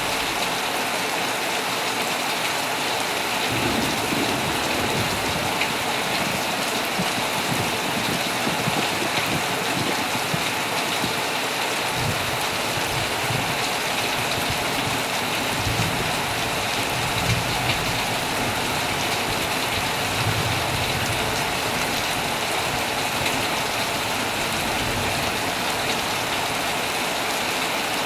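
Heavy rain falling steadily on a tent, a dense, even hiss, with faint low rumbles coming and going in the middle.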